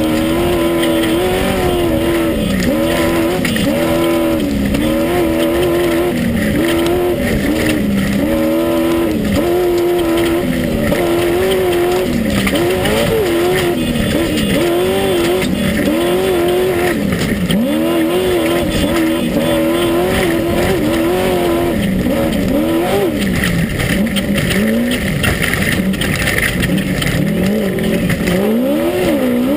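Class 1 unlimited off-road race buggy's engine heard from inside the car at racing speed, its pitch climbing and dipping every second or two as the throttle is lifted and reapplied, over a steady loud rush of driving noise.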